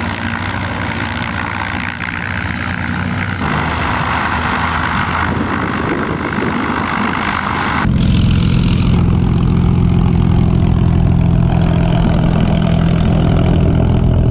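Light propeller aircraft engines running on the ground while taxiing. About eight seconds in, a louder, steady low engine drone takes over.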